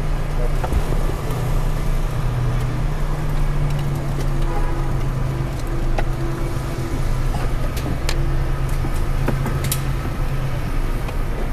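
Steady car engine and cabin noise heard from inside the car, an even low hum, with a few faint clicks.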